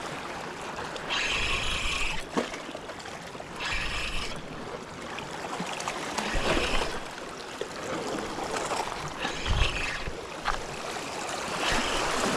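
Small waves washing and gurgling over shoreline rocks, swelling every two to three seconds.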